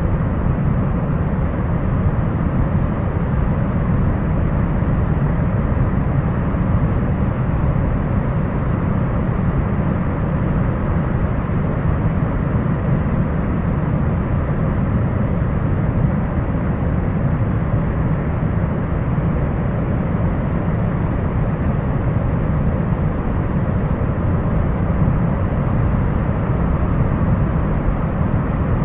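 Steady low rumble of wind buffeting the microphone, with no bird calls or other distinct sounds standing out.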